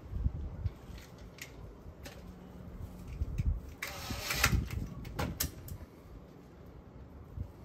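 Cordless drill with a Phillips bit driving small screws into an aluminium gate lock latch in short runs, with a few clicks of parts being handled.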